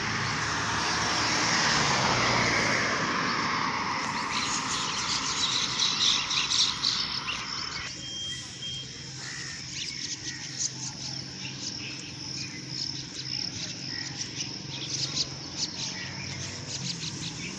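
A car passing on the road in the first few seconds, its tyre and engine noise fading away. After that, birds chirp many times over a quiet background.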